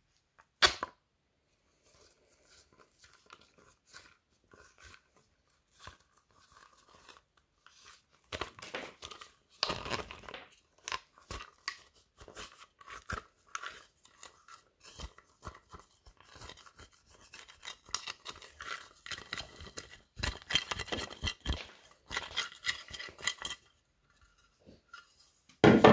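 A dried, cracked white slime crust crackling and crunching as a plastic tool pries and breaks it into chunks. There is one sharp crack about half a second in, then scattered small crackles that grow into dense crunching, and a loud crunch right at the end.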